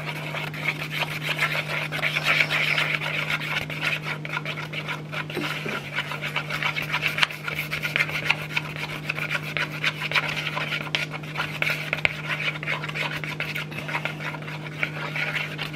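Wooden stick stirring white glue and yellow food colouring in a bowl, scraping continuously against the bowl's bottom and sides with many small clicks. A steady low hum runs underneath.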